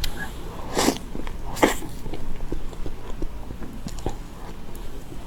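Close-miked mouth sounds of someone eating a soft, cold mousse dessert: wet chewing and small lip smacks throughout, with two short hissing bursts about one and one and a half seconds in.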